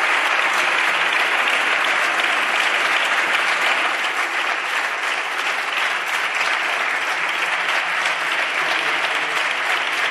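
Deputies in a parliamentary chamber applauding: steady, dense clapping from many hands at the close of a speech.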